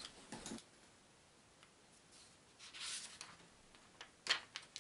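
Faint paper rustling as the pages of a hardback book are leafed through, with a few quick page flicks shortly before the end.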